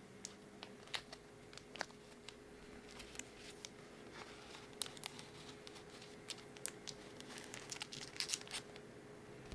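Foil booster-pack wrappers and trading cards being handled: scattered light crinkles and small clicks, with a denser run of crinkling about eight seconds in, over a faint steady hum.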